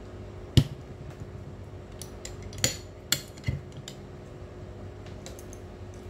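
Clicks and snaps of a handheld fiber optic cleaver being closed and fired on a stripped fiber: one sharp click about half a second in, then a short scrape and a few more clicks a couple of seconds later.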